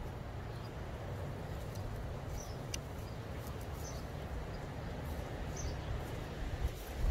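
Wind rumbling steadily on the microphone, with a small bird giving short, high chirps about every second and a half.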